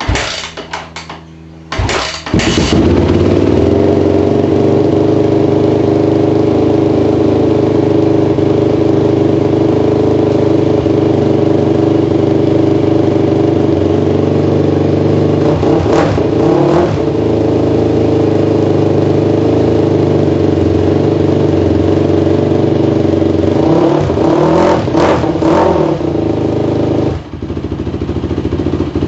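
Yamaha WR450 dirt bike's single-cylinder four-stroke engine, freshly rebuilt with new piston rings, starting with a brief sputter and then running steadily. It is blipped once about halfway and a few quick times near the end.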